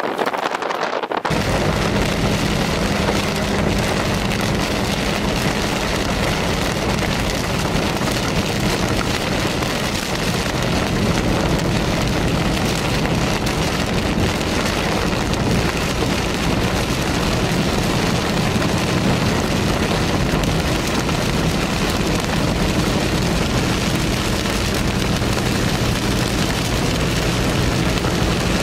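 Heavy rain drumming steadily on a vehicle's roof and windshield, with a low steady hum underneath, starting about a second in.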